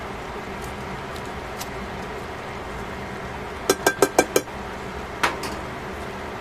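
Tongs clinking against a stainless steel pan of stir-frying cabbage and carrots. There are five quick clinks about four seconds in, then one more a second later, over a steady background noise.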